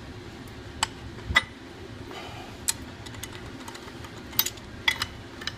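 Scattered sharp metallic clicks and clinks, about six of them, from a hand socket and bolt on a grinder's metal tooling plate as a coupler bolt is turned by hand into its threaded flange; a steady low hum runs underneath.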